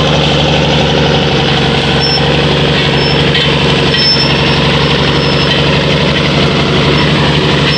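Heavy vehicle's engine idling steadily with a deep, even hum.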